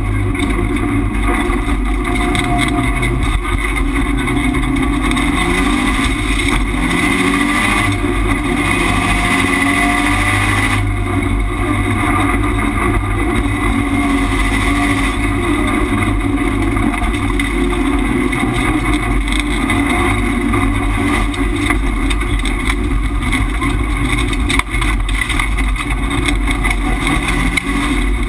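Subaru Impreza rallycross car's turbocharged flat-four engine, heard from inside the cockpit, running hard at racing pace with its pitch rising and falling as the driver accelerates, shifts and lifts, over loud road and wind noise.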